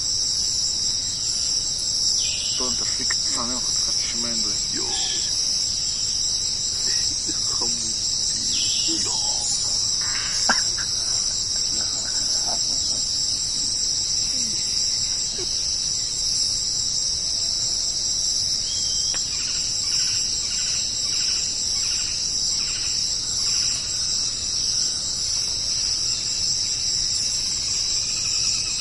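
A dense, steady high-pitched insect chorus, like crickets chirping. Faint scattered calls come and go in the first half, and a run of evenly spaced chirps follows later.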